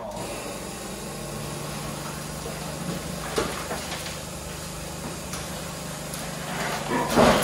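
Rusty Vauxhall HA Viva body shell creaking and rattling as it is turned over by hand on a homemade rotisserie spit, with loose rust falling out of it. A steady low hum runs underneath, and a loud clatter comes near the end.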